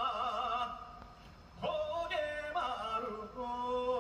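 A man singing a trot song unaccompanied into a microphone, holding notes with a wide vibrato. One phrase ends a little under a second in, and the next begins about a second and a half in with an upward slide into the note.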